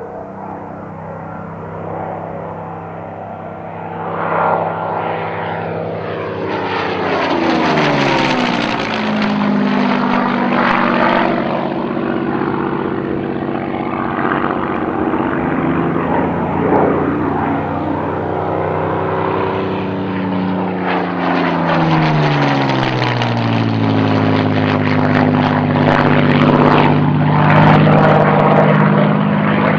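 Spitfire Mk.XVI's Packard Merlin V12 engine and propeller in flight, making two low passes: each time the note drops in pitch as the aircraft goes by, about a third of the way in and again past the middle. The second pass is the louder.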